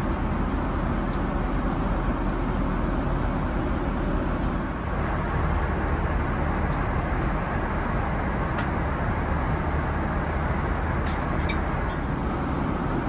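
Steady cabin noise inside a Boeing 777-200, an even low rumble with a few faint clicks near the end.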